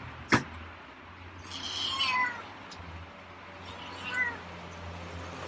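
A cat meowing twice: a longer, slightly falling meow about two seconds in and a shorter one about four seconds in. A single sharp click comes just before them, near the start.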